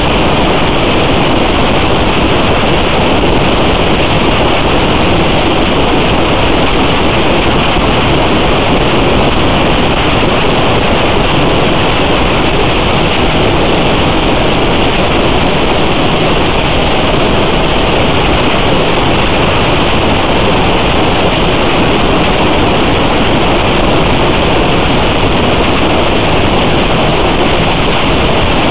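Steady, loud static hiss with no tone in it, the noise of an analog FPV video receiver's recording.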